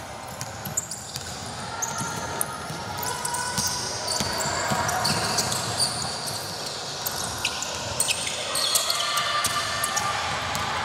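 Basketball game in play: the ball bouncing on the court and sneakers squeaking again and again, with players' voices calling out.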